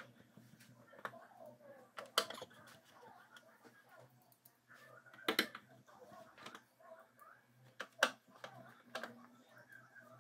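Screwdriver driving screws into an LED TV's metal chassis: scattered sharp clicks and taps, roughly one a second, the loudest a little over two seconds and five seconds in.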